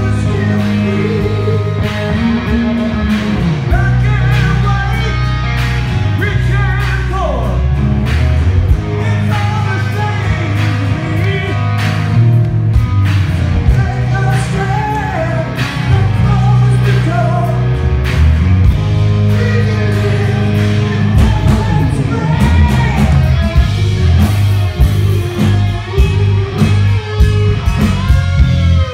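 Live hard rock band playing loudly: sung vocals over distorted electric guitars, bass guitar and drums, with a lead guitar coming forward near the end.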